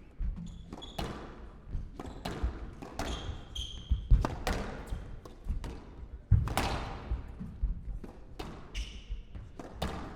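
A squash rally: the ball cracks off rackets and walls again and again, with echoes, and the two hardest strikes come about four and six seconds in. Court shoes give a few short squeaks.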